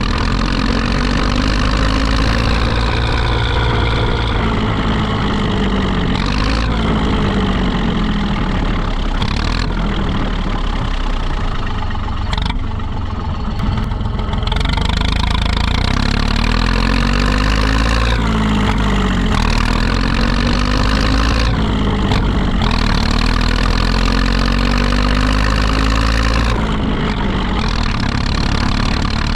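Zetor 5211 tractor's diesel engine running continuously, its engine speed sagging and climbing back again several times, with a brief lower, quieter stretch about halfway through.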